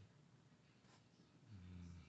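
Near silence with faint pencil strokes on paper. A low hum begins about one and a half seconds in.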